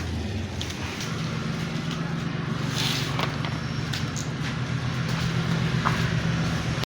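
A motor running steadily with a low drone, with a few light clicks and taps over it; it cuts off abruptly at the end.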